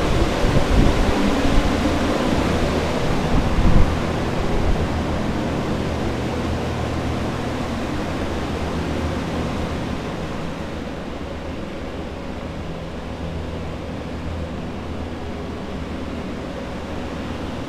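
Water-damage drying equipment running steadily: centrifugal carpet air movers and a dehumidifier blowing, a dense rush of air over a low hum. About halfway through the rush grows duller and a little quieter.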